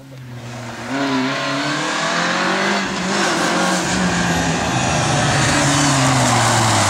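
Renault Clio rally car engine approaching at full speed, growing louder from about a second in, revs rising and falling through gear changes. The engine note falls steadily over the last few seconds as it reaches the corner, with tyre and road noise growing underneath.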